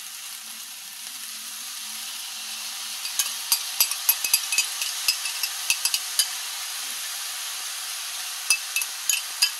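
Chicken breast and vegetables stir-frying in a stainless steel pan: a steady sizzle, joined from about three seconds in by a run of sharp clicks and scrapes of a spoon and wooden spatula against the bowl and pan as the soy-and-oyster-sauce seasoning goes in, and a few more near the end.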